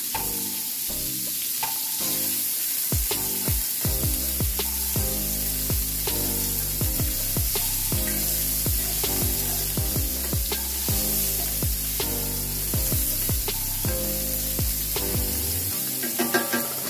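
Carrots sizzling in hot sesame oil in a skillet as they are stir-fried, with frequent clicks and scrapes of the stirring utensil against the pan.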